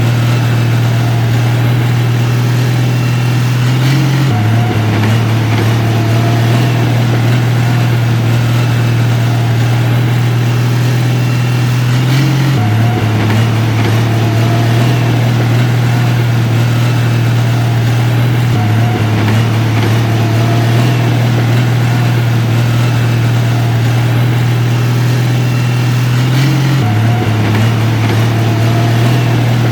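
Heavy construction machine's diesel engine running steadily, its low hum shifting slightly in pitch a few times.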